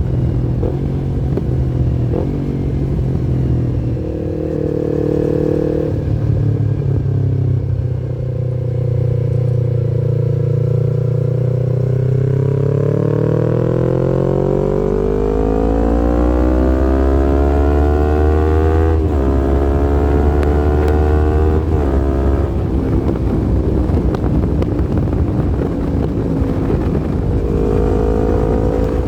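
Yamaha MT-25's parallel-twin engine under way: running steadily, then climbing in revs over several seconds, broken by two sudden drops in pitch as it shifts up, then settling to a steady note. It revs up again near the end.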